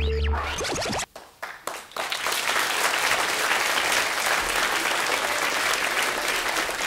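A music jingle ends in the first half second. After a brief lull, an audience applauds steadily.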